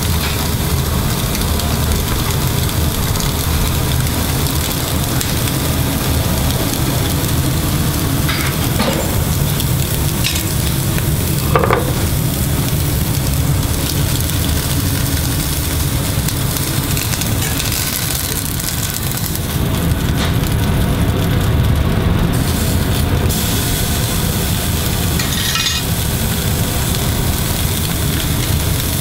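Thick turbot steak brushed with clarified butter sizzling steadily on a ribbed electric grill plate, over a steady low hum. A few brief knocks, the sharpest about twelve seconds in.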